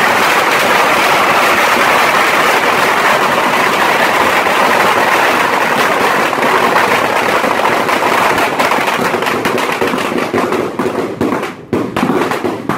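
A beehive rocket rack firing off its bottle rockets in a dense, continuous barrage of hissing and crackling bangs. From about ten seconds in, the barrage thins into scattered separate pops as the rack burns out.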